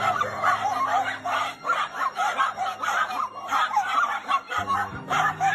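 High-pitched laughter: a quick, continuous run of short giggling calls.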